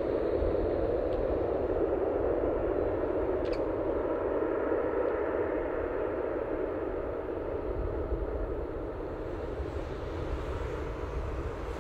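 Jet engines of a Boeing 787-8 running steadily at low thrust as the airliner lines up on the runway, a continuous even rumble. The engines are not yet spooling up for the takeoff roll.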